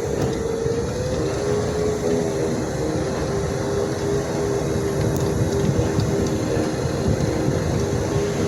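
Electric mobility scooter's drivetrain running with a steady whine over a rough grinding noise, the whine dipping slightly in pitch about half a second in and then holding steady. The grinding is a fault that appeared within a month of the scooter being new.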